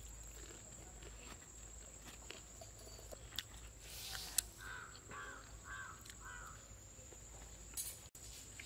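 A crow cawing four short times in a row about halfway through, faint over quiet outdoor background with a few light clicks.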